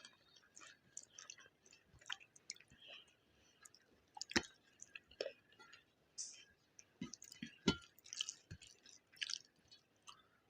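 Close-up wet chewing and mouth smacks of a person eating egg biryani with gravy, a run of irregular clicks and squelches with two louder smacks about four and seven and a half seconds in.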